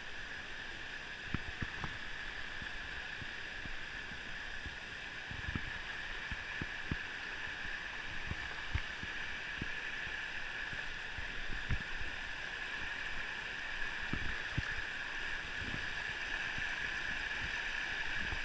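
Shallow river water rushing and gurgling over a rocky riffle, a steady rush that grows gradually louder toward the end. Scattered short, low thumps come through now and then.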